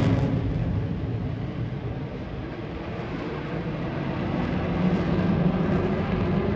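Aircraft engine noise receding, dropping to a low rumble about two seconds in, then building again through the second half.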